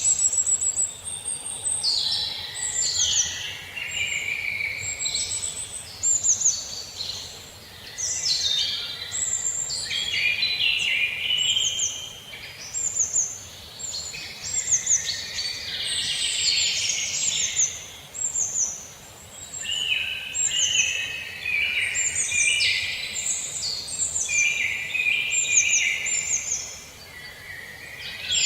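A chorus of many birds calling and singing at once: dense overlapping chirps with repeated short high notes that slide downward, over a faint steady background hiss.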